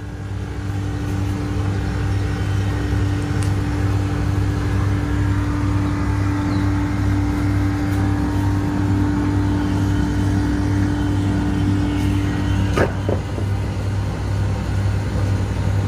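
A steady low mechanical hum, an engine or motor running constantly, with a single tone riding on top of it. It breaks off with a brief click about thirteen seconds in.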